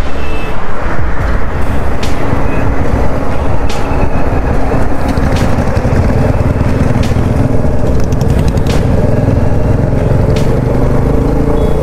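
Royal Enfield motorcycle engine running steadily at cruising speed, heard from the saddle, with rushing wind and road noise on the microphone.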